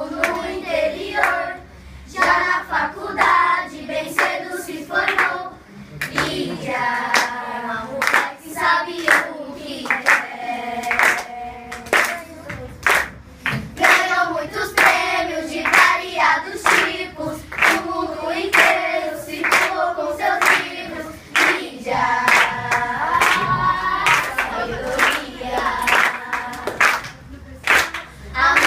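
A group of children singing a song together in Portuguese, clapping their hands to a steady beat of about two claps a second.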